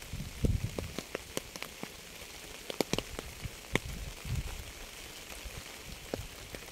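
Rain falling with a steady hiss, individual drops landing as sharp separate ticks, and a brief low rumble about half a second in.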